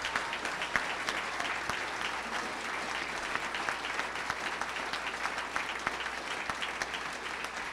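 Audience applauding: sustained, steady hand clapping from a roomful of people.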